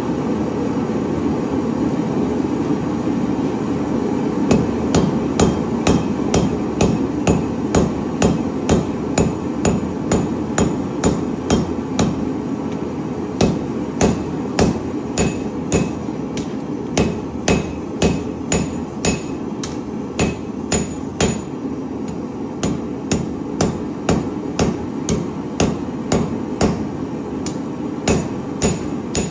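Cross-peen hammer striking hot steel on an anvil, forging the finger well on a knife tang. The blows start about four seconds in and come about twice a second, with short pauses, each leaving a brief high ring. Under them runs a steady rushing from the gas forge's burner.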